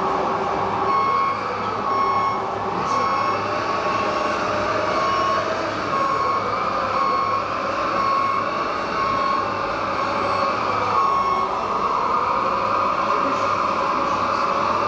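Radio-controlled scale wheel loader running: its electric drive and hydraulic pump whine, rising and falling in pitch as it works the bucket and backs up, while its reversing beeper sounds about once a second and stops after about eleven seconds.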